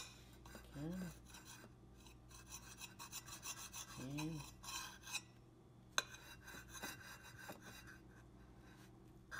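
Table knife sawing back and forth through a peanut butter and jelly sandwich, a run of quick rasping strokes through the bread, with two sharp clicks, one at the start and one about six seconds in.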